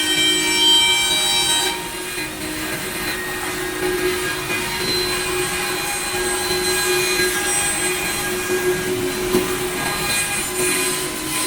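Spindles of a two-head five-axis CNC wood machining center running and cutting wood: a steady machine whine. A stack of high tones stops about two seconds in, leaving a lower steady hum.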